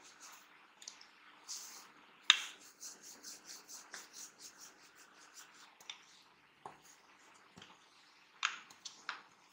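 Wooden rolling pin rolling dough out on a wooden board: soft, scratchy rubbing strokes, about three a second, with a few sharp knocks of the pin on the board, the loudest about two seconds in and a couple more near the end.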